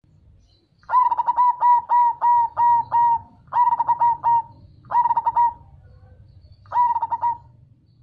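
Zebra dove (perkutut) song: phrases of quick, rhythmic cooing notes. A long run of about eight notes is followed by three shorter phrases with short gaps between them.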